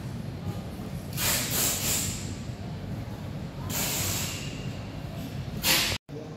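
Indoor exhibition-hall ambience: a steady low rumble, with three short bursts of hiss, the longest about a second in, another around four seconds, and a brief one just before the sound cuts out near the end.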